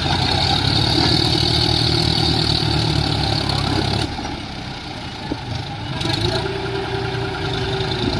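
John Deere tractor's diesel engine working as the tractor moves through loose sand. It runs steadily, eases off about four seconds in, then picks up again a couple of seconds later.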